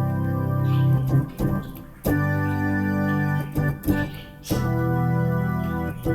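Keyboard playing held organ-like chords, a new chord struck about every two and a half seconds, with short sharp clicks in the gaps between chords.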